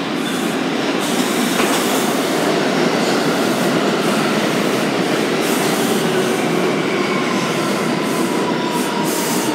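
Bombardier R179 subway train pulling into the station and slowing: a steady rumble of wheels on rail, with a faint falling whine in the second half as it brakes toward a stop.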